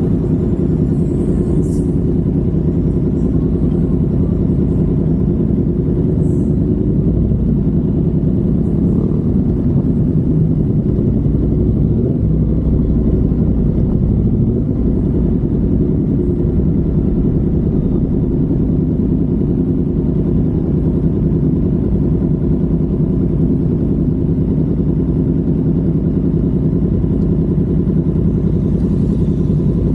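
Yamaha MT-10's crossplane inline-four engine, breathing through an SC Project 70 mm carbon-titanium exhaust, running steadily and low-pitched with no revving.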